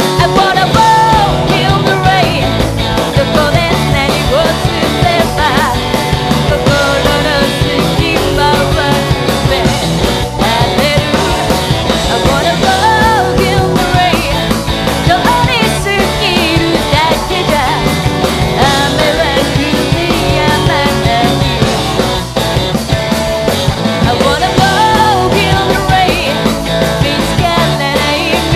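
Rock band playing a song live, loud and dense, with a sung melody over steady drums.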